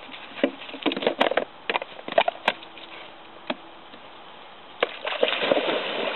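Scattered clicks and knocks for the first few seconds. About five seconds in, a sudden splash as a dog leaps into the water, followed by continuous splashing as it swims.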